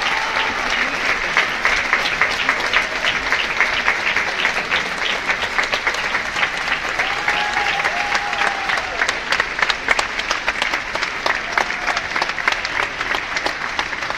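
Theatre audience applauding: dense, steady clapping from a large crowd in a hall.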